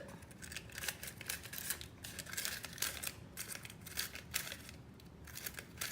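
Scissors snipping short slits into paper cupcake liners: a quick, irregular run of small crisp cuts with light paper crinkling.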